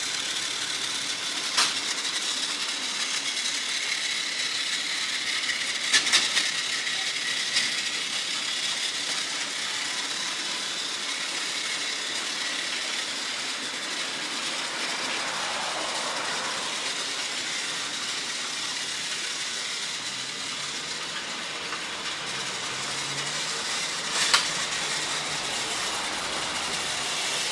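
Battery-powered Trackmaster Peter Sam toy train, a single-AA flat drive unit, running steadily along its track with narrow-gauge trucks behind: an even, smooth and quiet motor-and-wheel whir, with a few sharp clicks along the way.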